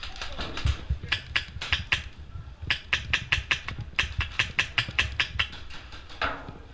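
Airsoft gun firing in three quick strings of sharp snapping shots, about five to seven a second, with short pauses between the strings.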